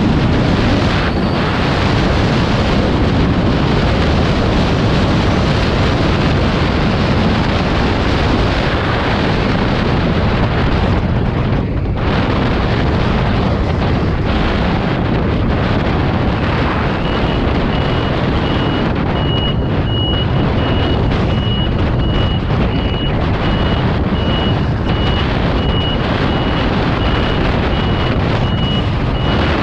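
Steady wind rush and road and engine noise from a vehicle on the move. From about halfway through, a high-pitched beep repeats at an even pace.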